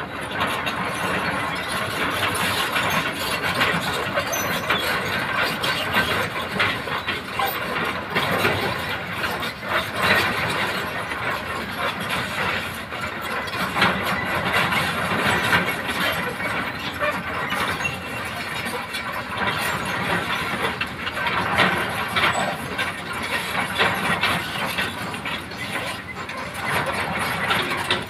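Komatsu crawler excavator at work: its diesel engine running, with the squealing and clanking of its steel tracks and undercarriage throughout.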